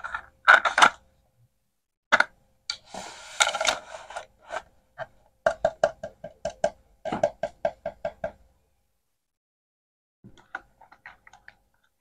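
Plastic toy food pieces and a wooden cutting board being handled: sharp knocks and clacks, a short scraping rattle, then a quick even run of about five clicks a second, with a few faint clicks near the end.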